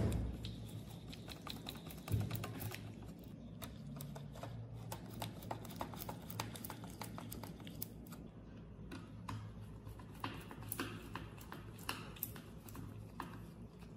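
Small screws being tightened by hand with a screwdriver into the mini air blower's back cover: an irregular run of light clicks and ticks as the screwdriver turns and is reseated.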